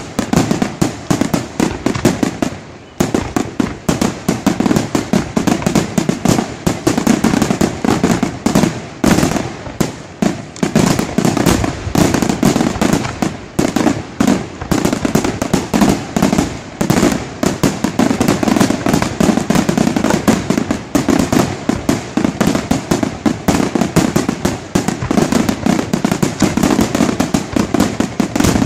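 Aerial firework shells bursting in a rapid, continuous barrage, the bangs packed so closely that they run together with hardly a pause.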